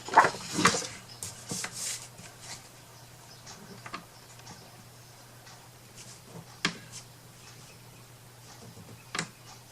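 Hands handling paper and a small wooden box: a cluster of paper rustles and light clicks at the start, then two single sharp taps, one past the middle and one near the end.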